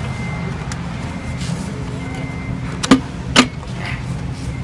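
Two sharp knocks about half a second apart as a diamond core bit is fitted onto the spindle of a stand-mounted core drill, over a steady low hum.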